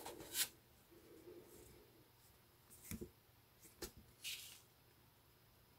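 Faint handling of paper leaflets: a few short rustles and slides as a printed card is lifted out of a cardboard box.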